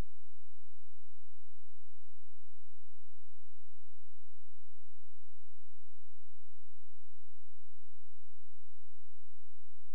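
Steady electrical hum: several constant tones over a fast, low buzz, with no change in pitch or level.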